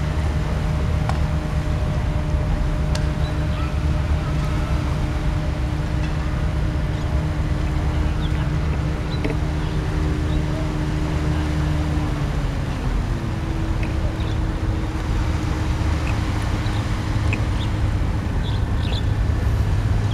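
An engine drone: a steady low rumble with a humming tone that slides down in pitch about two-thirds of the way through, then holds at the lower pitch. A few faint short chirps or ticks sound over it.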